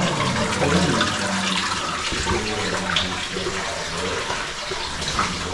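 Water splashing and running steadily in a flooded cave passage, with small irregular splashes.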